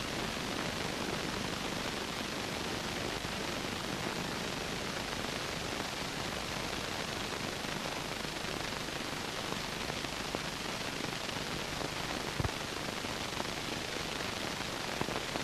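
Steady hiss of recording noise, with a few faint clicks late on.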